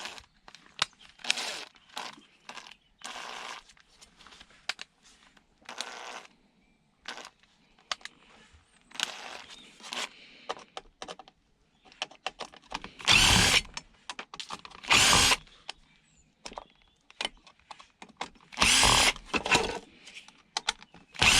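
Handheld power tool run in a series of short bursts while taking apart scrap electronics; the loudest bursts come in the second half.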